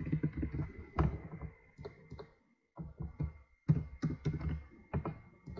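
Computer keyboard keystrokes: irregular clusters of dull taps and thunks, with short pauses between words, as names are typed in.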